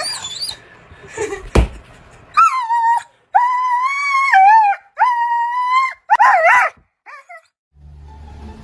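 A dog howling in a run of high, drawn-out notes, three long held calls and a shorter wavering one, after a single knock.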